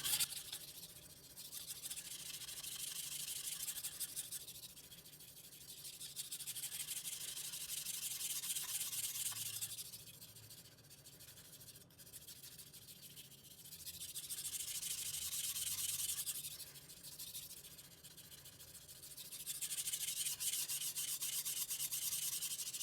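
German stainless kitchen knife being sharpened on a wet whetstone: steel scraping back and forth through the stone's slurry, swelling and fading in runs of a few seconds as the blade is worked along its length.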